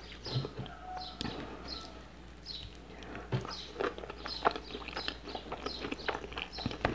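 Close-miked eating sounds: chewing with wet mouth clicks and lip smacks in a quick irregular series, busier from about three seconds in.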